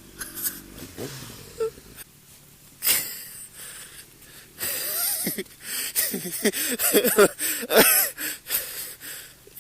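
A person's wheezing, wordless vocal sounds that rise and fall in pitch, starting about halfway through. Before them come a few scattered knocks and clicks.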